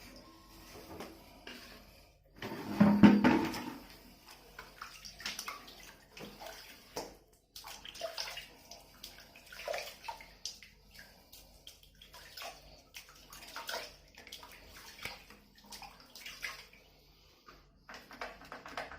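Bath water splashing and sloshing as a kitten is washed, with a louder splash about three seconds in and then small irregular splashes.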